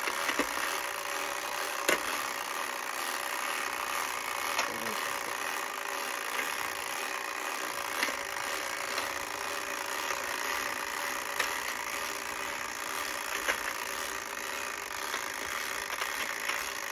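Wind-up clockwork timer of a Perfection game ticking steadily as it counts down toward popping the board, with a few sharp plastic clicks as shape pieces are pushed into their slots.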